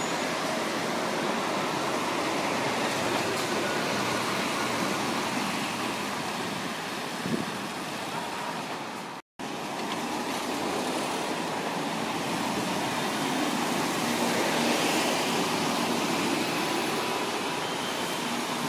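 Busy road traffic: double-decker buses and cars passing close by, a steady wash of engine and tyre noise. The sound cuts out for a split second about nine seconds in.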